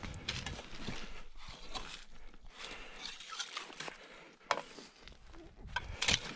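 A metal bar prodding and scraping a sawn block of ice in a fishing hole: irregular crunching and scraping, with a sharp knock about four and a half seconds in and another just before the end.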